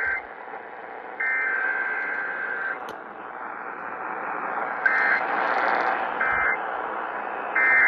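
Emergency Alert System data bursts, the harsh two-tone digital screech of the alert code. One long burst comes about a second in, then three short bursts about 1.3 seconds apart from about five seconds in, the pattern of the end-of-message code closing a Required Weekly Test. A steady hiss runs underneath.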